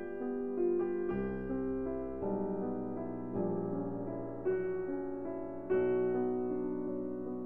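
Background piano music: slow, sustained chords that change about once a second.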